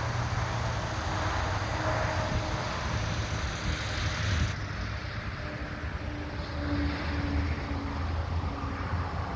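Wind on the microphone over a steady low rumble; the hiss thins out about halfway through.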